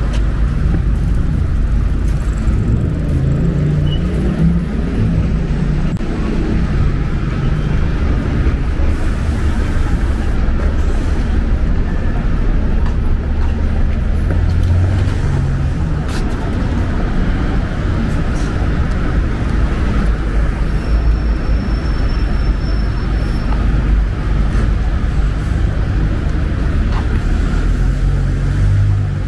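City street traffic running steadily, a constant low rumble with vehicle engines passing now and then.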